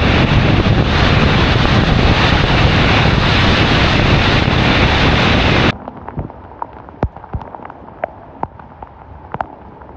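Loud, steady rush of floodwater spray and wind as vehicles drive through deep water over a flooded road. About six seconds in it cuts off abruptly, leaving a much quieter background with scattered sharp ticks.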